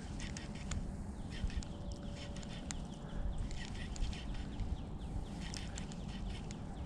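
Birds chirping and calling: many short, high chirps, some falling in pitch, over a steady low rumble.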